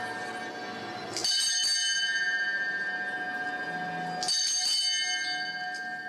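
A single bell rung by pulling a cord, struck twice about three seconds apart, each stroke ringing on with several clear tones that slowly die away.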